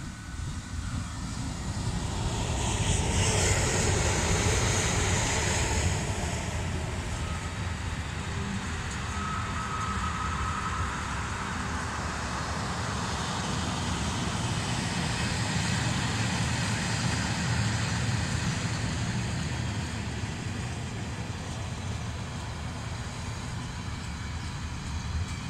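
Freight train of tank wagons and covered wagons rolling past: a steady rumble of steel wheels on the rails, loudest a few seconds in.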